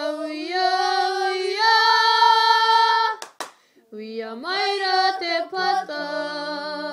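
Young voices singing a Māori waiata: a long held note that steps up in pitch twice, then a brief break with two sharp hand slaps, then the singing picks up again in shorter phrases, with a second, lower part joining near the end.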